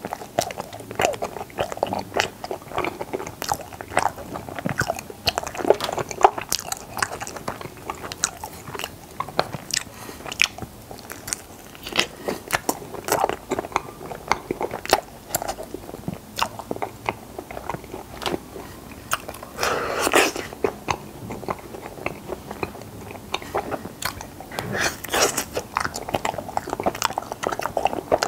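Close-miked biting and chewing of strawberry Chapssaltteok Ice, frozen mochi rice cakes filled with ice cream, with many irregular wet clicks and crunches. The chewing gets denser and louder around 20 seconds in and again around 25 seconds.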